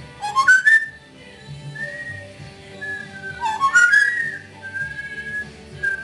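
Blue-fronted Amazon parrot whistling a short phrase of rising glides, repeated about every three seconds, with softer held whistle notes in between.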